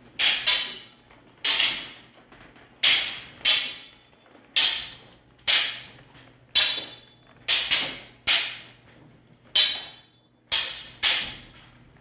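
Practice longswords clashing blade on blade in paired drills: sharp strikes about once a second, some in quick pairs, each ringing away briefly.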